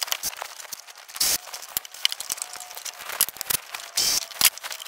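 Irregular clicks, taps and short rattles of tool work in a car's engine bay as the ignition components are worked on, with a few louder noisy bursts.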